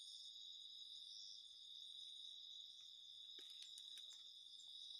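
Steady, faint chorus of crickets and other insects, a high drone at several pitches, with a faint tap about three and a half seconds in.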